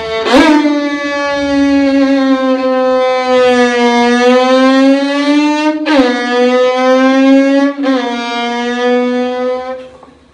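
A violin imitating a racing motorcycle engine: one sustained, buzzing bowed tone that sags and climbs in pitch like engine revs. The pitch drops suddenly twice, about six and eight seconds in, like gear changes. The note dies away near the end.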